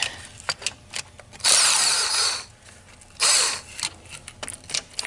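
Power tool spinning out bolts on a transmission: one run of about a second, then a shorter one, with clicks and taps of metal between.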